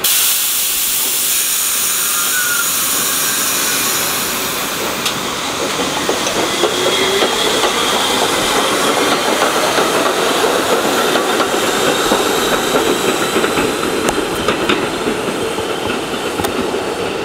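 R62A subway train's air brakes releasing with a sudden loud hiss, then the train pulling out and picking up speed, its wheels rumbling on the rails with occasional clicks as it moves away.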